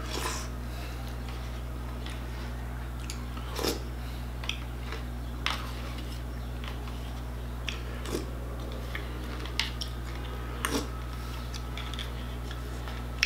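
A spoon scraping and clicking against a plastic cereal bowl a handful of times, between mouthfuls of chewed Frosted Flakes, over a steady low hum.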